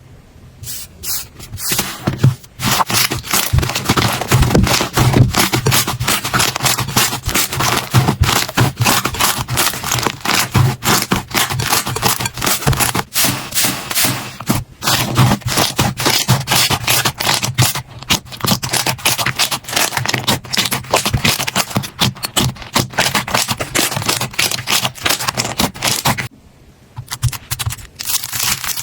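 Slime being handled close up: a dense run of sticky crackling, clicking pops and scraping, with a brief pause near the end.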